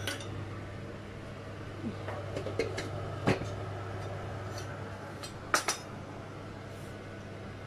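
Stainless steel cookware clinking and knocking as the lid is set on the soup pot: several sharp metallic clinks, a strong one about three seconds in and the loudest, a double knock, about five and a half seconds in, over a steady low hum.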